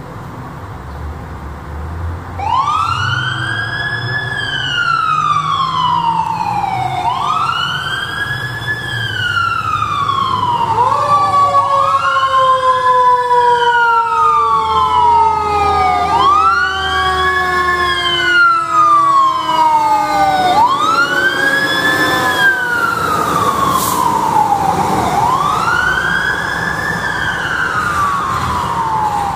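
Fire truck siren wailing, starting about two seconds in and repeating a quick rise and slow fall roughly every four to five seconds. Through the middle a second, lower siren tone slides slowly downward alongside it, over the low rumble of the truck's engine.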